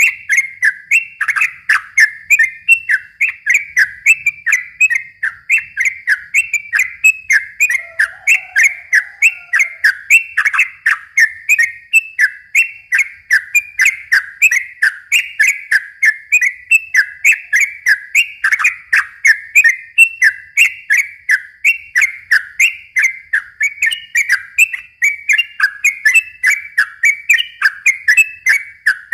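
Yellow-vented bulbul (trucukan) singing a long, unbroken run of quick, bubbly chattering notes, about three or four a second.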